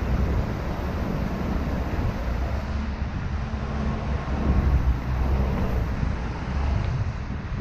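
Steady city traffic noise from vehicle engines and tyres on an avenue, mixed with a low wind rumble on the microphone of a moving bicycle.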